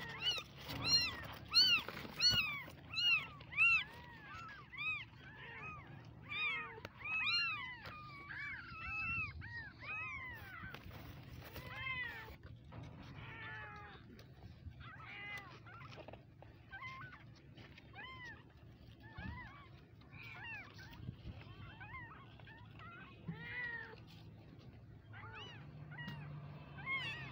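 Newborn kittens, eyes still closed, mewing over and over in short high calls that rise and fall in pitch. The calls come loud and close together for the first few seconds, then go on fainter and more spaced out.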